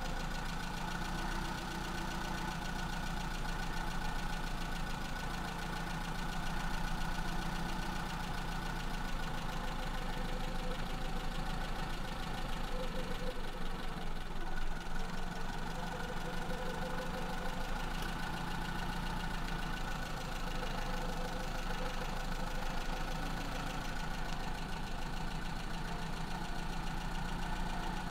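Maruti Zen's carburetted petrol engine idling steadily at about 900 RPM while its idle mixture is being tuned.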